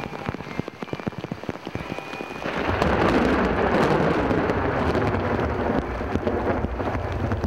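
Rainstorm: scattered patter at first, then about two and a half seconds in a heavy, loud downpour sets in with a low rumble of thunder underneath.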